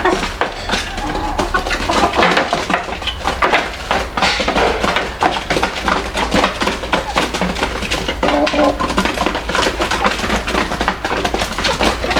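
A flock of chickens clucking over a steady, busy clatter of many small hard clicks and taps.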